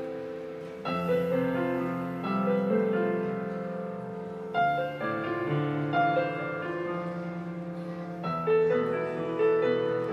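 Slow piano music, chords struck every second or two and left to ring out.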